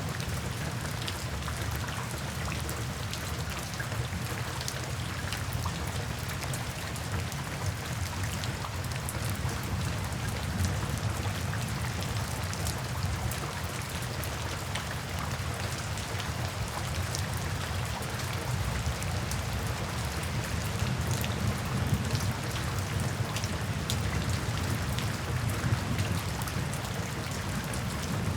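Steady rain falling into puddles and standing water, with many small drop splashes over a low, even rumble.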